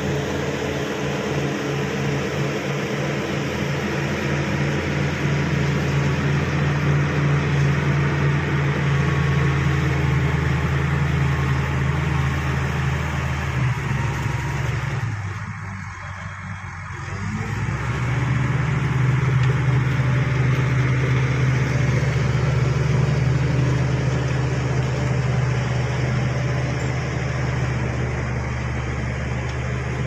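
Shantui SD16 crawler bulldozer's diesel engine running under load while it pushes wet soil, a steady low engine note. About halfway through it drops briefly, then returns a little louder.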